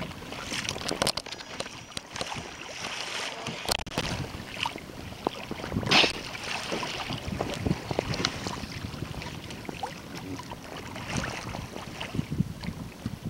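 Choppy harbour water slapping and lapping around a kayak, with wind buffeting the microphone. About six seconds in, a short, sharp whoosh is the loudest sound.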